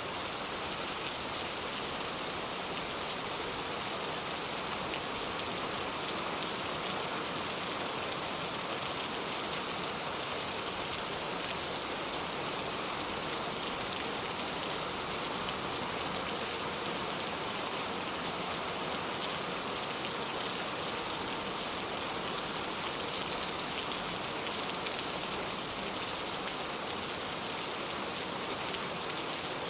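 Steady rain falling, a continuous patter of many fine drops hitting a surface.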